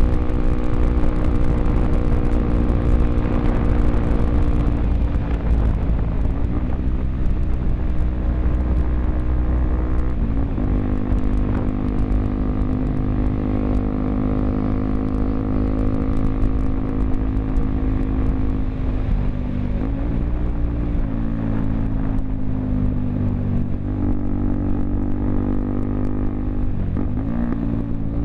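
Honda XRE 300 motorcycle's single-cylinder four-stroke engine running under way through a Roncar 2 Way aftermarket exhaust. The engine note holds steady, with brief dips in pitch about four times.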